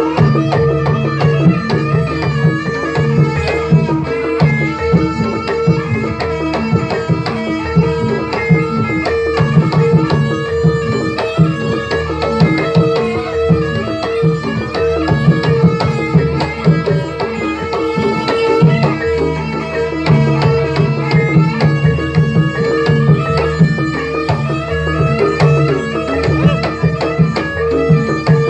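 Javanese jaranan gamelan music: a hand-played kendang drum rhythm over a dense stream of struck metal notes, with a steady held tone underneath.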